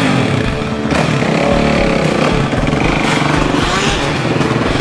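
Dirt bike engine revving, its pitch rising and falling with the throttle.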